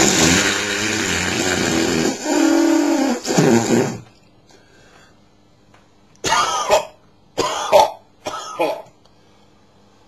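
A long fart lasting about four seconds, noisy and wavering in pitch toward its end, followed about two seconds later by a few short coughs.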